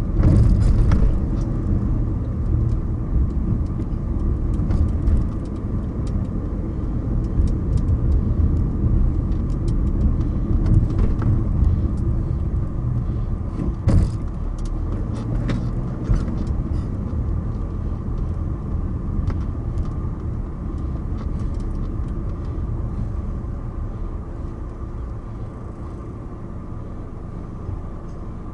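Car driving on city streets: a steady low rumble of engine and road noise, broken by scattered sharp knocks and rattles from bumps, the loudest about halfway through. The rumble grows quieter near the end.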